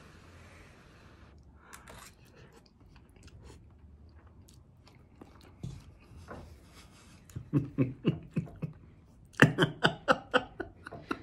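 A man eating hot ramen noodles from a cup: a brief slurp as the forkful goes in, then chewing with small wet clicks. In the last few seconds comes a quick run of louder, short, rhythmic sounds.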